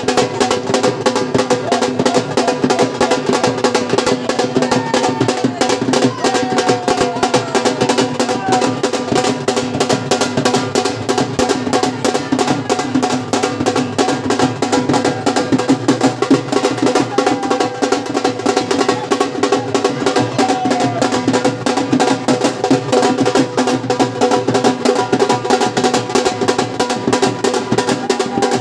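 Dhol drumming: a fast, continuous beat on the double-headed barrel drum, with a steady held tone sounding underneath.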